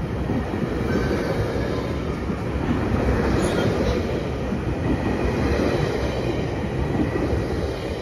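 GO Transit bilevel passenger coaches rolling past on the rails as the train leaves the station, a steady dense rumble of wheels on track, with one brief high squeal about halfway through.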